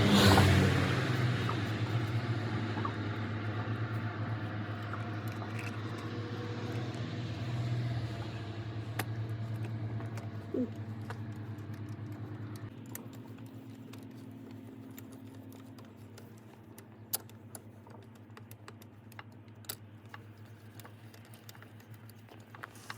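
A motor vehicle's engine drones loudly at first, then fades steadily over many seconds as it moves away. Scattered light metallic clicks and clinks are heard once it has faded.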